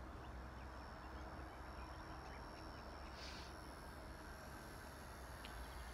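Faint outdoor background: a steady low hiss with a thin, steady high-pitched whine from a small RC helicopter (K110) flying at a distance.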